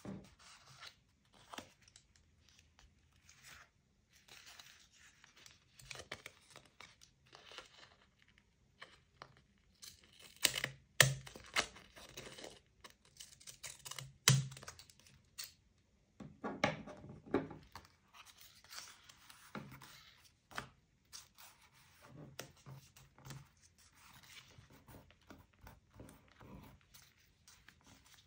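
Paper being handled for journaling: short rustling and tearing strokes with small clicks, and a few sharper taps on the work surface near the middle.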